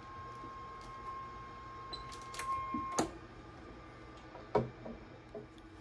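Steady 1 kHz audio test tone, cut off by a sharp click about halfway through, followed by a few scattered clicks and knocks of bench equipment being handled.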